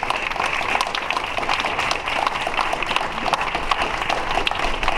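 Crowd applauding, many hands clapping in a steady dense patter.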